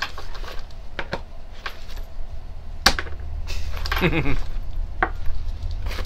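Small gear being unpacked from a nylon bag and set down on a wooden tabletop: scattered clicks and knocks, the sharpest about three seconds in.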